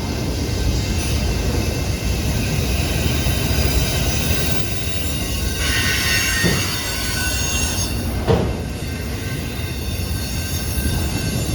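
Train rolling past: a steady rumble of wheels on rail with high-pitched wheel squeal, strongest about six seconds in, and two short clanks about six and a half and eight seconds in.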